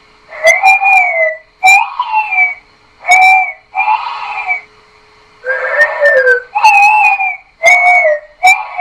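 Homemade dinosaur sound effect made from an electronically altered voice: a rapid series of about seven short, high-pitched calls, each dropping in pitch at its end, with brief gaps between them.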